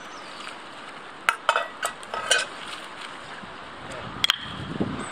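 Hands splashing in a shallow, fast-flowing stream, a few sharp splashes over the steady rush of the running water.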